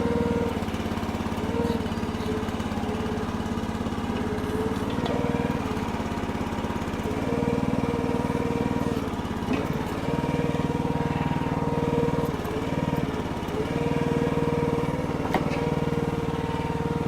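Small gas engine of a Red Rock mini towable backhoe running steadily, its note swelling and easing every second or two as the hydraulics take load while it digs.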